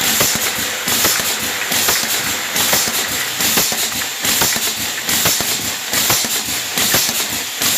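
Pneumatic aerosol filling machine running: a hiss of air repeating about once a second, over a steady clatter of clicks and knocks from the mechanism.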